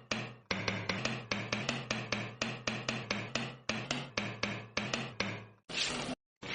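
Rapid crunching while eating, about five sharp crunches a second, then two longer rasping bursts near the end.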